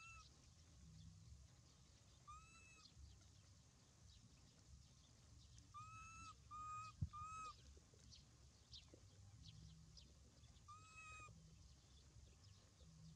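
Faint short arched coo calls of an infant macaque, about six in all, three of them in quick succession around the middle. A single soft knock comes in among those three.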